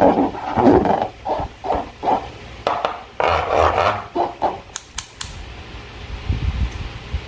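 Slime and rubber balloons being handled, making irregular squishing and rubbing noises, with two sharp clicks about five seconds in.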